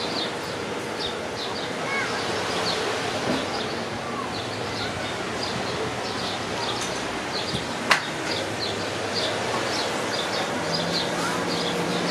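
Seaside ambience: a steady wash of sea and wind noise with small birds chirping over it. A single sharp click about eight seconds in, and a low steady hum comes in near the end.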